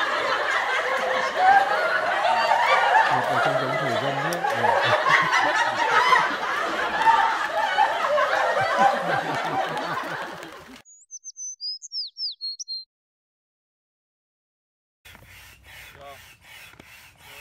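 A group of men laughing loudly and talking over one another. Near the end the laughter cuts off, a quick run of high bird-like chirps follows, and after a short silence a hand pump starts its regular strokes, about three a second, inflating an inflatable boat.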